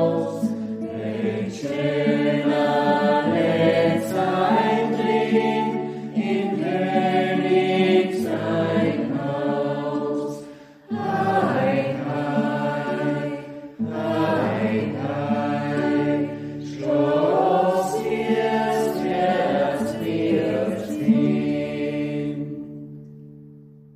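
Choir singing a slow song in long held phrases, fading out near the end.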